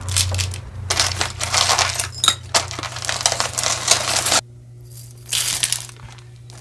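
Metal costume jewelry (chains, beads, pendants) clinking and rattling as pieces are handled and dropped together, with many quick clicks. About four and a half seconds in the clinking stops, and a brief rustle follows.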